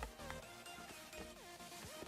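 Background electronic music with sliding synth notes and a regular low beat.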